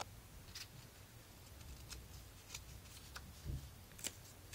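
Faint paper handling: a few light ticks and rustles as the pages of a paper notepad are lifted and turned, with one dull knock late on.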